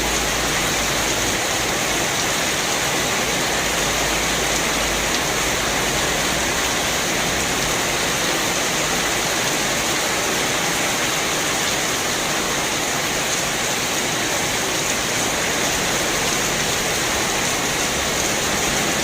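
Rain falling steadily onto parked motorcycles, an even unbroken hiss, with a faint low rumble in the first few seconds.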